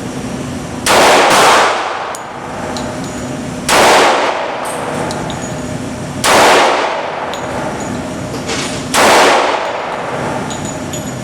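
Five pistol shots from a custom, ported Glock 20 SF in 10mm Auto. The first two come about half a second apart, about a second in, then one roughly every two and a half seconds, each with a short ringing tail.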